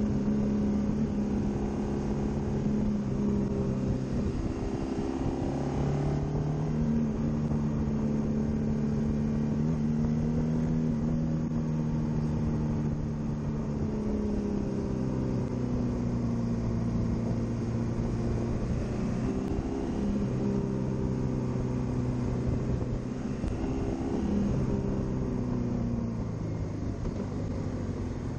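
Honda VFR800X Crossrunner's V4 engine running under way, its note stepping up and down in pitch several times with throttle and gear changes, over steady wind and road rush.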